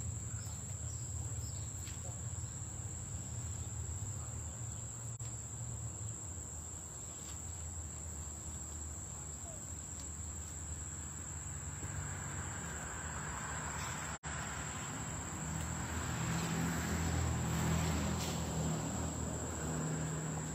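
A steady high-pitched insect trill, cricket-like, over a low rumble of outdoor background noise that grows somewhat louder in the second half.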